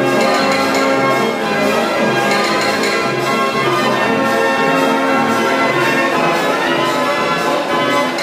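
Dutch street organ (draaiorgel) playing a tune, many pipe tones sounding together, loud and steady.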